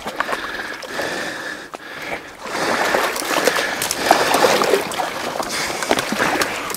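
Wading through shallow marsh water and pushing through dry reeds and brush: splashing and rustling with small snaps of stems, louder from about two and a half seconds in.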